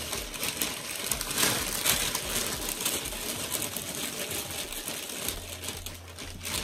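Packaging rustling and crinkling as it is rummaged through by hand: a dense run of small crackles, loudest about one and a half to two seconds in.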